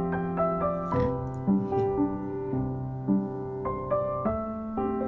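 Background piano music: a melody of held notes that change every half second or so.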